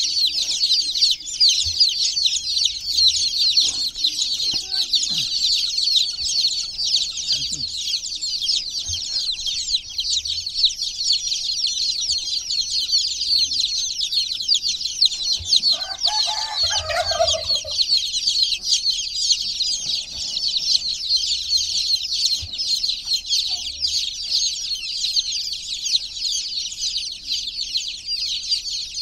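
A crowd of baby chicks chirping nonstop, many high-pitched peeps overlapping into a dense, steady chorus. About halfway through, a single brief lower-pitched call sounds under the peeping.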